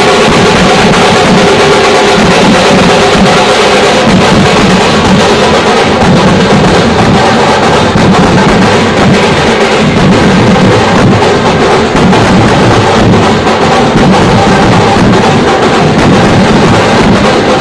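Indian street brass band playing loud festival music, with constant heavy drumming and brass horns holding notes, clearest in the first few seconds.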